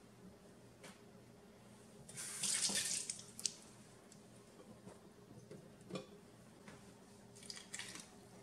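Cucumbers being packed by hand into glass canning jars in a stainless-steel sink: a few light knocks against the glass and a brief loud rush of hiss about two seconds in, over a steady low hum.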